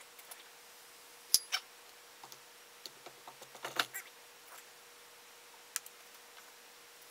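Scattered metal clicks and knocks as an Atlas 9-inch lathe spindle, chuck mounted, is set down into the headstock's bearing seats, over a faint steady hum. The sharpest click comes about a second and a half in, with a cluster of smaller knocks about three to four seconds in.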